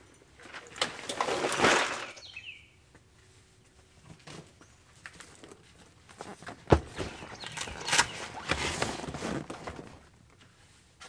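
Bags and a soft-sided cooler handled and loaded into a vehicle's rear cargo area: rustling and shuffling of fabric and straps, with one sharp knock a little past halfway as something is set down. Birds chirp faintly.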